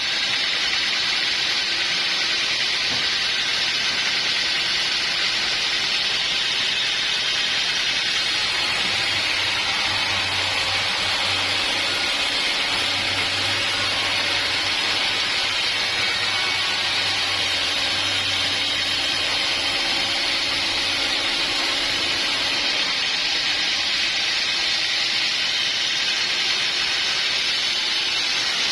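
Sawmill running with a steady, even hiss.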